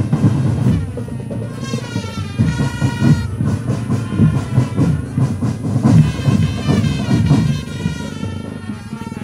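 Marching drum band playing: drums beat a steady, dense rhythm under a pitched melody line.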